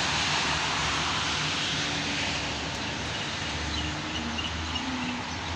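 A steady rushing background noise with a faint low hum, easing off slightly over the few seconds.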